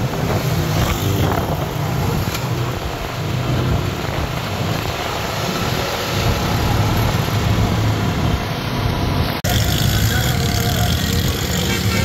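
Auto-rickshaw engine running while the rickshaw rides through city traffic, with steady engine rumble and road noise. The sound briefly cuts out about three-quarters of the way through.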